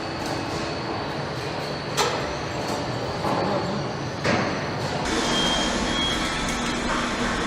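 Car assembly-line machinery noise: a steady mechanical hum and hiss with sharp metallic clanks about two and four seconds in. About five seconds in, a deeper hum sets in along with short, repeated high tones.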